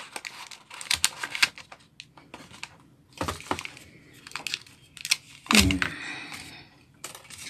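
Wired earphones being handled: taken out of a small cardboard box and their cord unwound, with light rustling and scattered clicks of the plastic earbuds and cord. A knock with a low thump comes a little past halfway.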